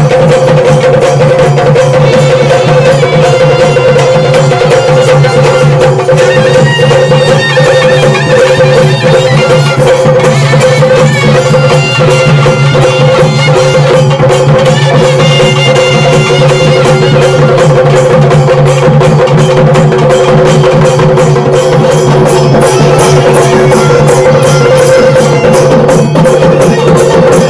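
Traditional ritual music: a group of barrel drums beaten in a fast, dense, continuous rhythm, over a steady held drone and a melody line that shifts above it.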